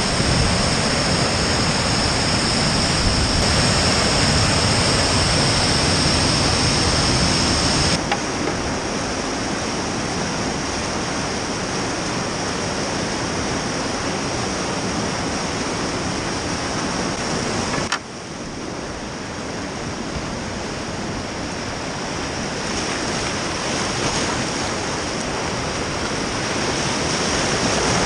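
Whitewater of a steep creek rushing, a steady wash of water noise heard up close through a helmet-mounted camera. The sound changes abruptly about 8 and 18 seconds in, dropping in loudness after the second change and building again near the end as the kayak runs into a rapid.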